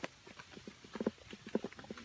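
Footsteps of people walking in sandals: a quick, irregular run of short clacks and slaps.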